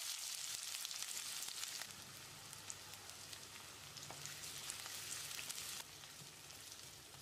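Chopped small onions (shallots) sizzling in hot oil in a stainless steel kadai, stirred with a wooden spatula with a few faint taps. The sizzle is loudest at first and drops in steps, after about two seconds and again near six.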